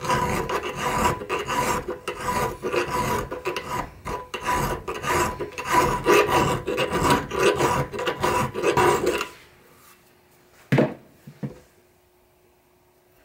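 Small half-round steel file rasping back and forth inside the eye of a steel Proto 1332 ball peen hammer head held in a vise, in rapid strokes, filing down the mushroomed top of the eye so that a handle will fit. The filing stops with about four seconds to go and is followed by two light knocks.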